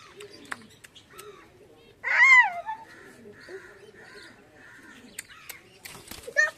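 Fancy pigeons cooing softly, with a loud crow caw about two seconds in and another sharp bird call near the end.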